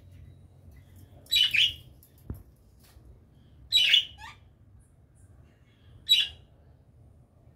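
A pet parrot giving three short, harsh squawks about two and a half seconds apart, the first one doubled. A single small knock comes just after the first squawk.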